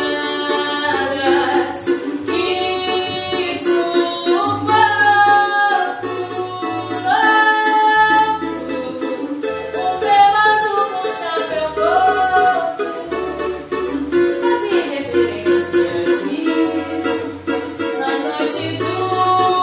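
A woman singing a melody, accompanied by a cavaquinho of imbuia wood played in steady chords.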